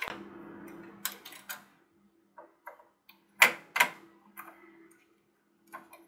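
Small sharp clicks and taps of an Intel Core i5 processor being handled and set into its motherboard socket: a couple of light ticks about a second in, then two louder clicks a little under half a second apart past the middle, and a few fainter ticks after.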